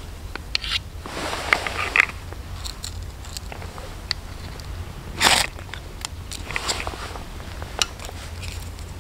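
Stones knocking and scraping against each other as they are handled and set in a dry stone wall: several sharp clicks and short crunching scrapes, the loudest a little past halfway.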